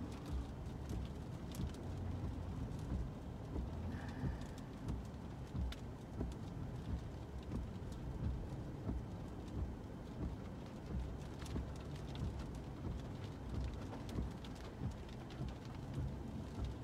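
Rain pattering on a car windshield over the steady low road rumble inside the moving car's cabin, with the wipers sweeping in an even rhythm about once a second.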